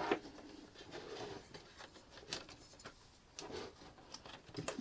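Handling noise from the opened plastic case of a battery booster pack: scattered light clicks, knocks and scrapes as the case halves are pulled apart and the wires inside are moved.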